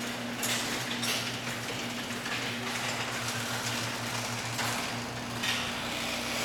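Genie Pro Max garage door opener running as it lowers the door: a steady motor hum with the rattle and clatter of the door and drive, the hum cutting off near the end as the door closes.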